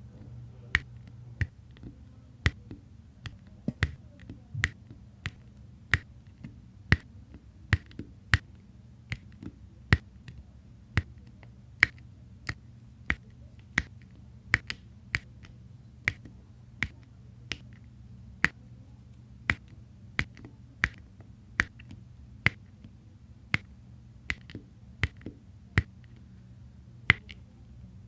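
Diamond painting pen tapping round resin drills onto the sticky canvas: sharp little clicks, one per drill, a little under two a second, over a faint low hum.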